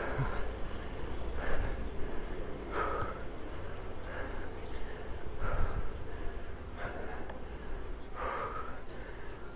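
A cyclist's heavy, laboured breathing while pedalling hard up a steep climb: a forceful gasping breath about every second and a half, over a steady low rumble.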